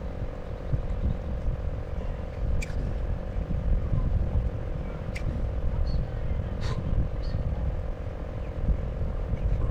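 Steady, uneven low rumble with a constant drone running underneath, and a few brief high chirps.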